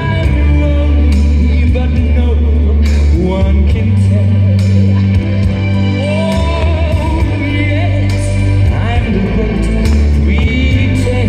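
Music with a singing voice over sustained bass notes, played loud.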